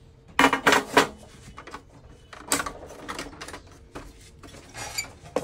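Sharp clicks and knocks of hard plastic and metal parts of an HP LaserJet printer being handled as its casing is opened: four close together in the first second, then a few more scattered.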